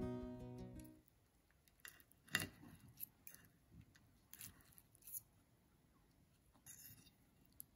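Guitar music fading out in the first second, then a few faint, scattered clicks and light scrapes of cutlery on a plate, with near silence between them.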